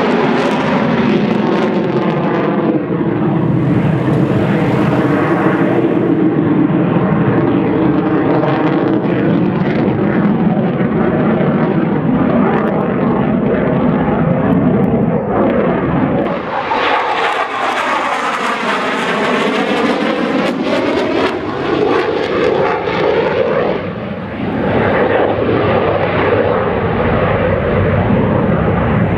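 F/A-18F Super Hornet's twin jet engines: a loud, continuous jet roar during a display flight. Past the middle the sound takes on a sweeping, phasing quality that dips and rises as the jet passes.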